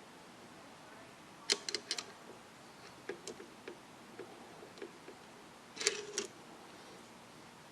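Clicks and light taps of hand work on a receiver chassis, tools and small hardware being handled. A cluster of sharp clicks comes about a second and a half in, softer scattered ticks follow, and another quick cluster of clicks comes near six seconds.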